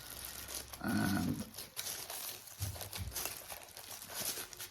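Light handling noises, rustling and soft clicks, as small electronic modules and their packaging are picked up. A short low vocal sound comes about a second in.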